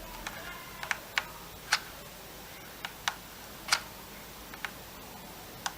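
Sharp, irregularly spaced clicks, about nine in all, from a hot glue gun being worked along the edge of a quadcopter frame, the loudest about a third and two thirds of the way through.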